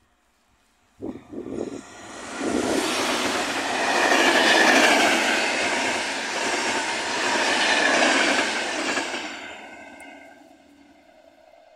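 Locomotive-hauled passenger train passing at speed: the rush of wheels and coaches starts about a second in, is loudest through the middle and fades away toward the end.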